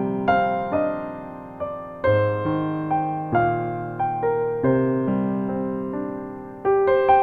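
Background music: a slow, gentle piano melody over held bass notes, each note struck and left to ring out.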